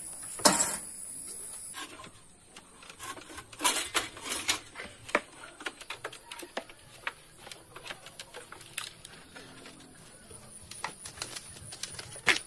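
Metal casing of a split air conditioner's outdoor unit clunking and knocking as it is lifted off its wall bracket and carried, with a sharp knock about half a second in and a cluster of knocks around four seconds. Light clicks and rattles fall in between.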